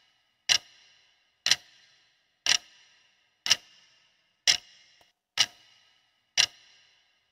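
Clock-ticking sound effect counting down a quiz answer timer: one sharp tick a second, each with a short ringing tail.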